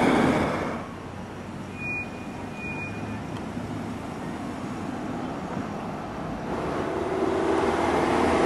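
Street traffic: vehicles passing, one swelling past at the start and another engine growing louder near the end. Two short high beeps sound about two seconds in.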